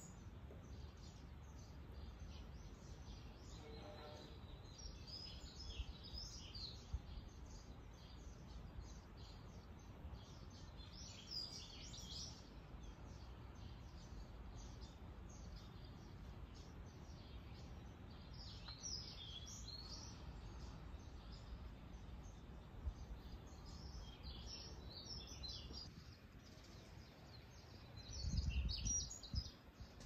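Small songbirds chirping and twittering on and off, over a steady low outdoor rumble. A brief louder low rumble comes near the end.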